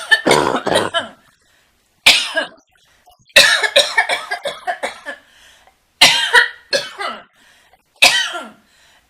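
A person's smoker's cough: harsh hacking coughs in about five separate fits, each a quick run of coughs, with pauses between them. The longest fit comes in the middle.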